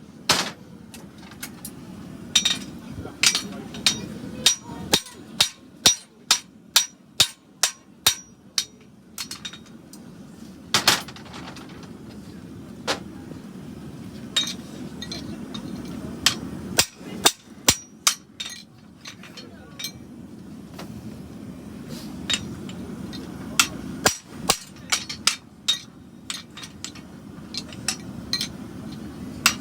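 Farrier's hammer striking steel on an anvil while forging a horseshoe: runs of ringing metallic blows, roughly two a second, broken by short pauses. A steady low hum runs underneath.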